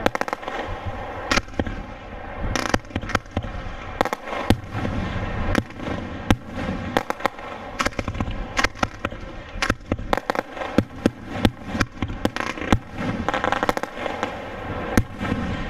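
Fireworks display: aerial shells bursting one after another, a dense, uneven run of sharp bangs and crackling.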